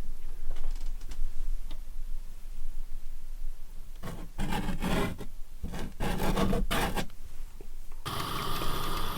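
Several short bursts of rubbing and scraping from about four seconds in. Near the end a steady hiss with a faint hum cuts in suddenly.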